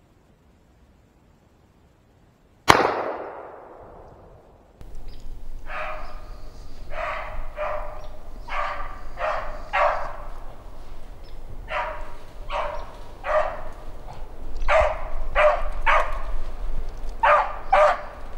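A single 16 gauge shotgun shot about three seconds in, ringing away over a second or so; it is the shot that kills the rabbit. After a short gap, a beagle bays over and over on the rabbit's trail, short yelping howls in groups of two or three.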